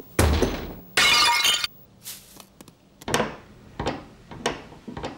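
A heavy thud, then a clay flowerpot smashing on a paved path about a second in, followed by a few short knocks near the middle and end as a cartoon sound effect.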